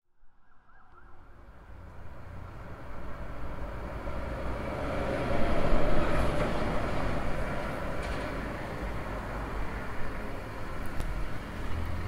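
Urban road traffic fading in from silence: a steady rush of passing vehicles that grows louder over the first several seconds, then holds.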